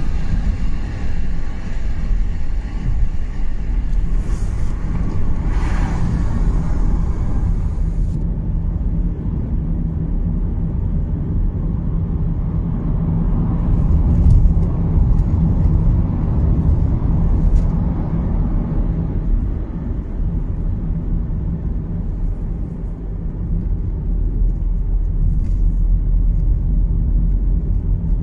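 Road noise heard inside a VW Golf 7's cabin while driving at speed: a steady low rumble of tyres and engine, a little louder about halfway through while passing through a tunnel.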